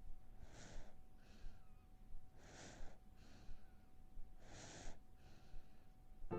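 Baby monkey snoring in its sleep: three hissy snoring breaths about two seconds apart, each followed by a fainter breath.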